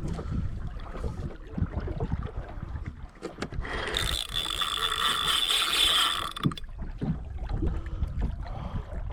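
Large spinning fishing reel working under a fighting snapper, its mechanism whirring and ratcheting. It is loudest and most sustained for about three seconds in the middle.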